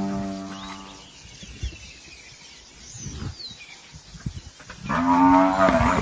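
African buffalo bellowing in distress while lions bring it down. A long, steady bellow fades out about a second in. After a quieter stretch with faint high chirps, a second loud bellow starts about five seconds in and bends in pitch.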